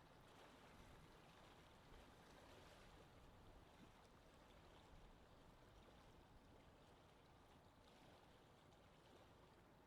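Faint, steady outdoor water ambience, a soft even rush of moving water with no distinct events.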